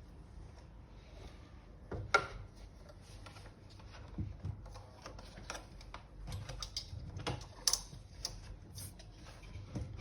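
Irregular light clicks and knocks of hard plastic and metal parts being handled while a new motor is fitted into a vacuum cleaner, with a sharper knock about two seconds in and another near the end.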